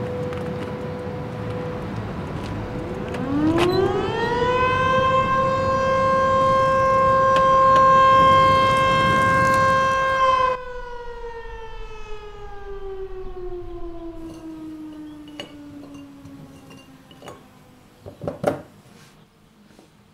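Shipyard siren winding up over about two seconds to a steady wail, holding for several seconds, then slowly winding down in pitch. A few sharp clatters come near the end.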